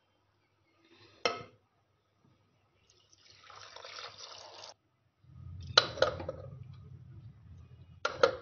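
A single knock, then liquid poured into an aluminium pressure cooker for about two seconds. Then come handling rumble and sharp metal clanks, twice, as the pressure cooker's lid is fitted on.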